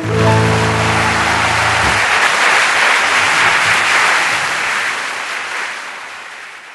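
A live audience claps and cheers as the song ends, while the band's last chord rings for about two seconds and then stops. The applause carries on and fades out near the end.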